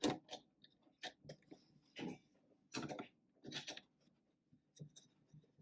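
Scattered small clicks and knocks, about eight or nine spread unevenly, from hands handling a power inverter and fastening the negative battery cable to its terminal.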